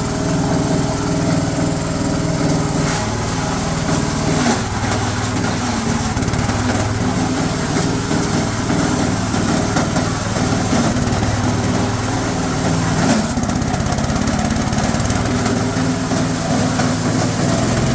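G-30 type chopper-grinder running steadily under load, its knives shredding coconut fronds mixed with small twigs. There are short louder crunches about four and thirteen seconds in.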